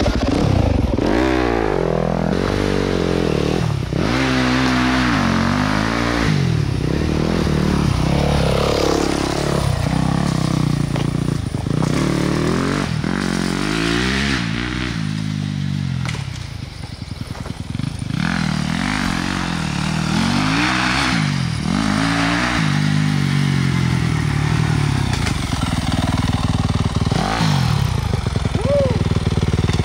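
A 2021 Yamaha YZ250F dirt bike ridden hard. Its 250cc single-cylinder four-stroke engine revs up and drops back over and over as the throttle is opened and closed. The engine dips in level about halfway through, then comes back up loud.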